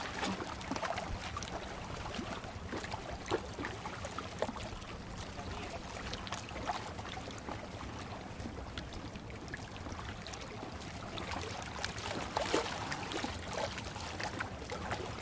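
Seawater washing and lapping against concrete breakwater blocks: a steady wash with small scattered splashes.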